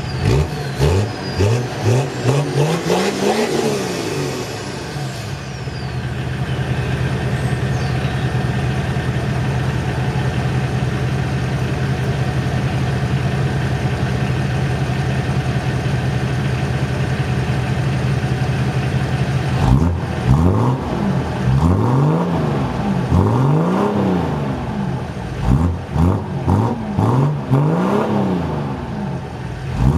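Six-cylinder car diesel engine revved in quick blips, then idling steadily, then blipped repeatedly again from about two-thirds of the way in.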